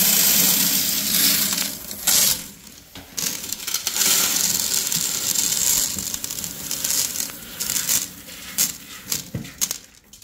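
Colored aquarium gravel poured into a glass fish tank and spread by hand: a continuous clatter of small stones, breaking off about two seconds in and resuming, then scattered clicks near the end.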